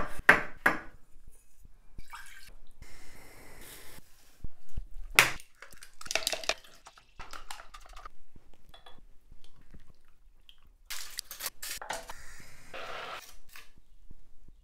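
Kitchen food-preparation sounds: a knife cutting through shiitake mushrooms onto a wooden cutting board at the start, then scattered clinks and knocks of ceramic bowls and cups, with stretches of soft scraping noise in between.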